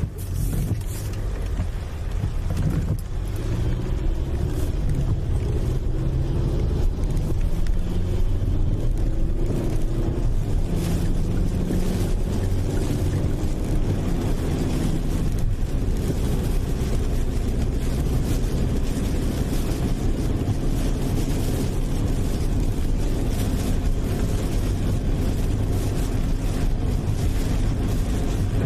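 A car being driven, heard from the cabin: a steady engine and road rumble with scattered light knocks and spatters.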